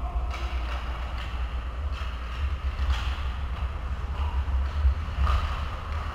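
Ice rink sounds during hockey play: a steady low rumble under faint scattered clacks of sticks and puck and skate scrapes, with a few faint distant calls.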